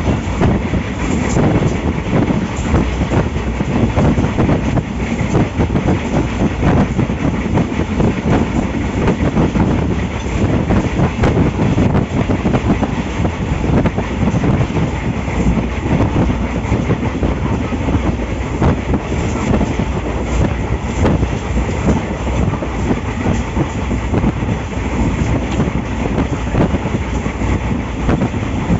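Ranakpur Express passenger coach running at speed, heard from on board: a steady rumble and rush of wheels on the track, with the rapid clickety-clack of rail joints running through it.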